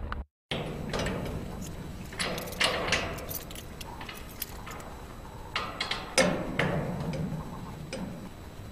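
Clicks and rattles of handling in a few short bunches as a warning sign is fixed to a wire mesh fence.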